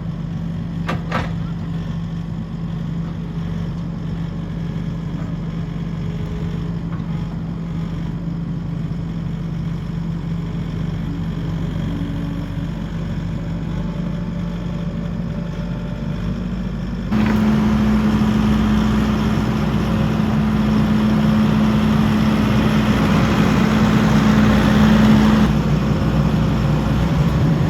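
Skid steer's engine running steadily, then stepping up suddenly to a higher, louder pitch about seventeen seconds in.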